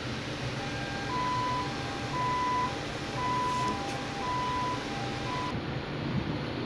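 An electronic two-tone alarm, a lower and a higher note alternating about once a second, over steady background noise; it stops about a second before the end.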